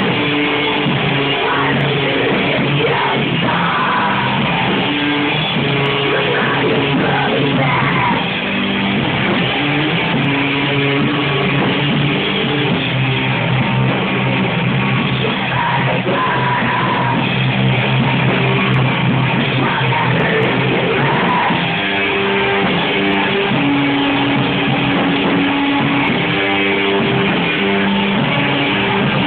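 A live rock band playing loud and steady: electric guitar, electric bass and a drum kit.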